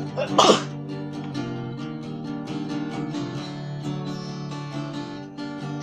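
Acoustic guitar being strummed steadily, with one loud sneeze about half a second in; the strumming carries on through it.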